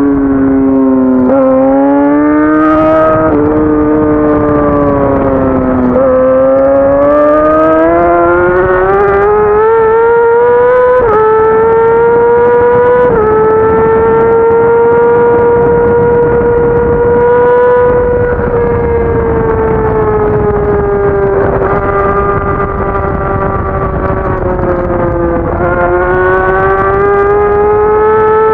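Sport bike engine at high revs, pulling hard through the gears. The note climbs with short dips at each upshift in the first dozen seconds, holds steady for several seconds, sags a little, then rises again near the end, over a rush of wind noise.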